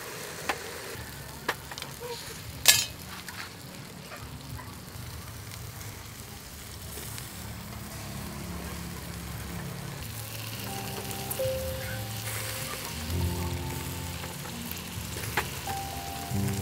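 Mud clams sizzling in their half shells on a wire grill over charcoal, with a few sharp clicks, the loudest about two and a half seconds in.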